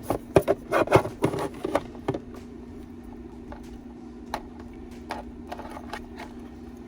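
Makeup bottles and containers clicking and clattering as they are handled and set down: a quick run of knocks in the first two seconds, then a few single clicks. A steady low hum runs underneath.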